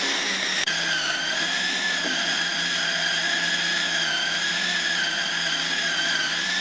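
Mixer grinder with a food processor jar running steadily, its motor whining while the blade kneads chapati dough. The pitch wavers slightly as the dough is worked.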